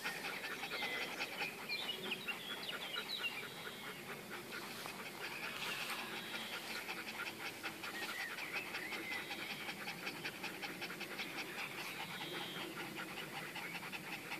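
Beauceron dogs panting quickly and steadily, tongues out, after a run. A few faint high chirps sound behind them.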